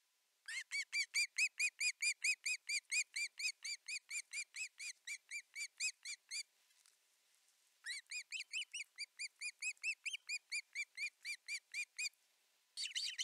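Osprey calling: a rapid series of short, arched whistled notes, about four to five a second, running for about six seconds, then after a short pause a second series of about four seconds.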